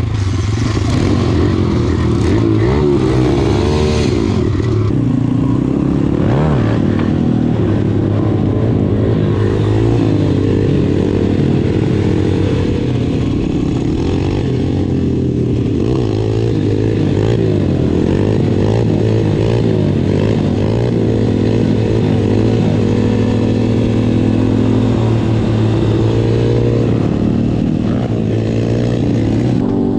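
Dirt bike engines running over a steady low drone, with the revs rising and falling.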